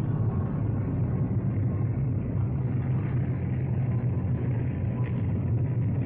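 Steady drone of Hawker Hurricane fighter-bombers' piston engines in formation flight, a low, even rumble on an old newsreel soundtrack with little treble.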